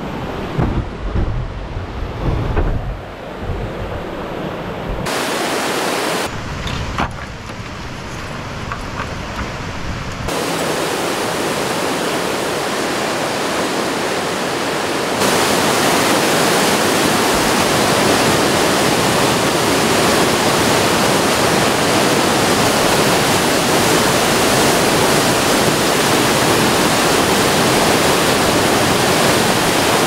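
Rushing whitewater from a river running high over falls and rapids, a steady loud wash of water noise. Low bumps come through in the first few seconds, and the water gets louder in two jumps, about a third of the way in and again about halfway.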